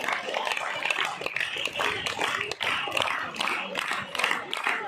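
A crowd clapping steadily in many quick, irregular claps, with voices mixed in.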